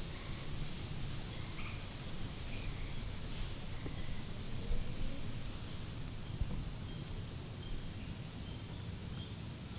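Steady high-pitched chorus of crickets, one unbroken trill, over a low rumble of wind on the microphone.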